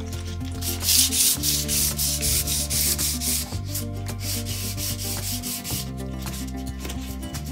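Hand wet sanding of a painted wooden tabletop with wet 500-grit sandpaper: quick back-and-forth scratchy rubbing strokes, strongest in the first half and fainter near the end. Background music with low bass notes plays underneath.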